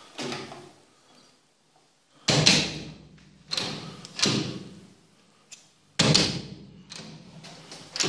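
Aluminium-framed glass door being swung and pulled shut several times, with loud sudden clacks and bangs as it closes and the Lockwood mortice lock's latch meets the electric strike, each hit ringing briefly. The latch is being tested into the newly fitted strike.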